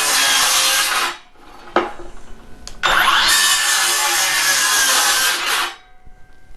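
FLEX circular saw running and cutting wood in two passes: the first ends about a second in, the second starts about three seconds in and stops near the end.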